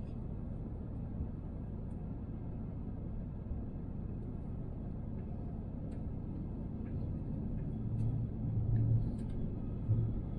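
Airbus A350 cabin noise in flight: a steady low rumble, swelling with a few heavier low bumps near the end.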